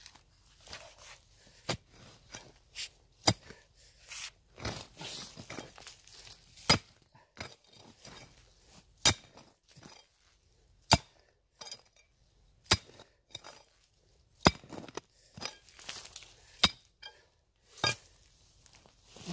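A metal digging tool striking and scraping stones in rocky soil while a wild bellflower root is dug out. Sharp clinks come every second or two, with crunching scrapes of grit and soil between them.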